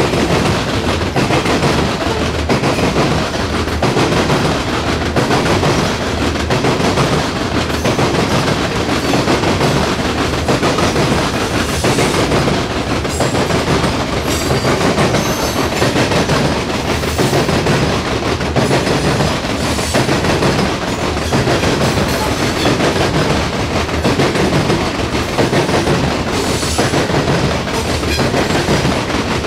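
Open-top coal hopper cars of a freight train rolling past at close range: a steady, loud noise of steel wheels running on the rails, with repeated clicks as wheels pass over rail joints.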